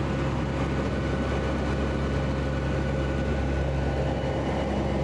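Cabin drone of a Lockheed WP-3D Orion's four turboprop engines and propellers in cruise flight, heard from inside the aircraft: a steady low hum with a few constant higher tones over it.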